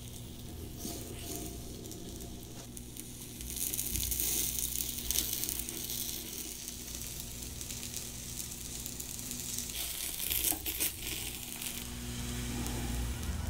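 Blocks of kirimochi, Japanese rice cake, sizzling in a small nonstick frying pan as they grill. The hiss swells a few seconds in, with a few light clicks near the end.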